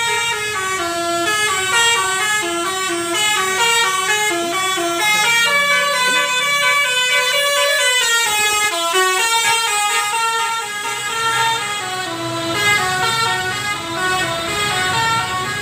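Tour bus's basuri (telolet) multi-trumpet musical horn playing a fast tune of stepped notes, several pitches sounding together, as the bus passes close and drives away. The tune breaks briefly with a falling note about eight to nine seconds in, then carries on.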